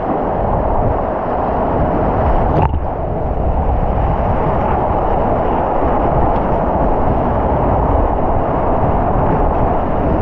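Steady rush of whitewater rapids, a dense even noise heaviest in the low end, with a single short knock about two and a half seconds in.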